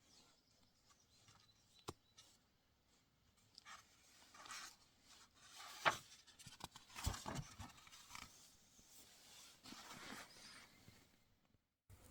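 Faint rustling and handling noise with scattered clicks and knocks, loudest in a short cluster around six to seven seconds in.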